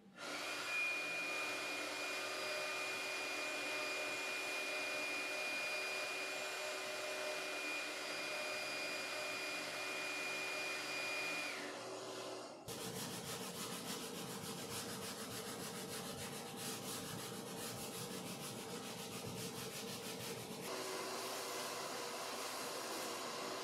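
CNC router spindle running with a steady high whine for about the first half. After a cut it is engraving hardwood with a V-bit, a grainier noise full of fine rapid ticks. Near the end a shop vacuum hose runs steadily, clearing chips from the engraving.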